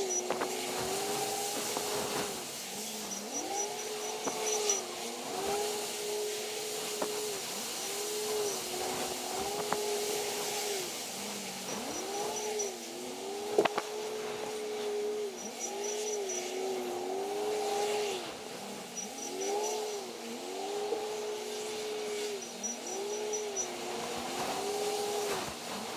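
Komatsu WA500 wheel loader working, its engine whine rising, holding and falling again every second or two as it revs up and eases off, over a steady lower hum, with an occasional sharp clank.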